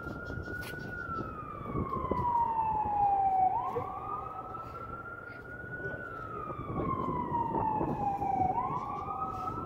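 Emergency vehicle siren on a slow wail. Each cycle sweeps quickly up, holds high for a couple of seconds, then slides slowly back down, repeating about every five seconds.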